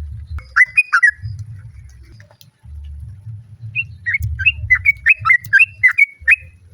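Yellow-vented bulbul calling: a short cluster of quick chattering notes about half a second in, then a fast run of about ten notes lasting some two and a half seconds, over a low rumble.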